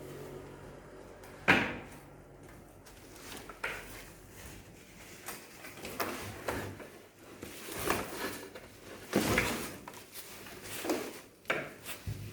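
Handling noises from unpacking a boxed flat-screen TV: scattered knocks, scrapes and rustles of cardboard and packing as it is pulled and lifted out, the sharpest knock about a second and a half in.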